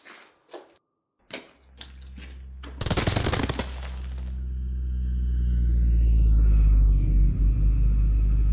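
Film sound effects: the deep, steady hum of a hovering flying machine comes in and grows louder, pulsing near the end. Before it a few sharp knocks, then a dense rapid rattle lasting about a second and a half, around three seconds in.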